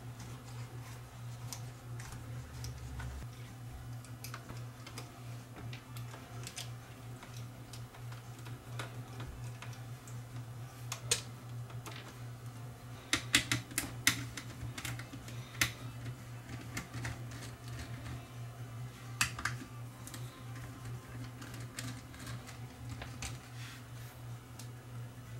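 Scattered clicks and taps of a small screwdriver, screws and plastic body parts as a Canon XL2 camcorder is taken apart on a workbench, the loudest in a cluster about halfway through, over a steady low hum.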